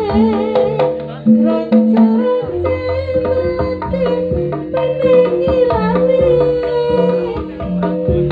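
Live traditional Javanese gamelan-style music: hand drums beating a steady pattern under held low tones and a wavering, sliding melody line.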